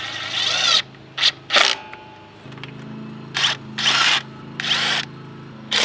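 Cordless power driver run in one longer burst and then several short trigger pulls, its motor whirring up and down in pitch as it tightens fasteners.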